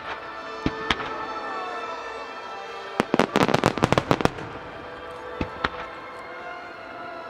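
Fireworks shells bursting in a star mine barrage: a couple of single bangs, then a rapid volley of about a dozen bangs a few seconds in, and two more after it. Music plays through loudspeakers underneath throughout.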